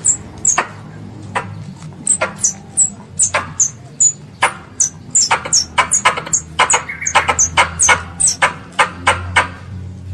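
Young squirrel calling for its mother: a rapid, irregular series of sharp, high chirps, each dropping slightly in pitch, that come thicker in the second half. A faint low hum runs underneath.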